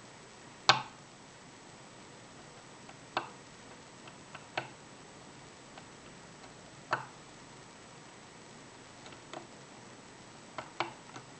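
Thin steel Euro hook pick working inside an Evva euro cylinder's tight, restrictive keyway, giving about a dozen irregular sharp clicks as it catches the warding and lifts the pin tumblers. The first click, under a second in, is the loudest, and a quick cluster of clicks comes near the end.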